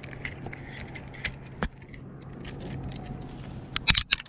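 Fishing rod and reel handled close to the microphone during a topwater frog retrieve: scattered clicks, rattles and scrapes, with a few loud knocks near the end.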